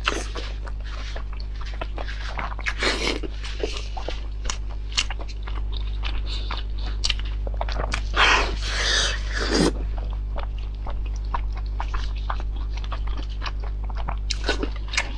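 Close-miked eating: a person biting and chewing spicy food, with many small crunches and wet clicks. There are two longer, noisier stretches, at about 3 seconds and from about 8 to 10 seconds, over a steady low hum.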